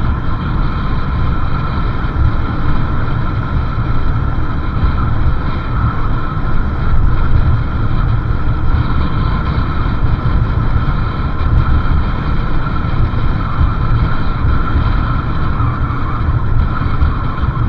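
Motorcycle on the move: its engine running steadily under loud wind buffeting on the microphone.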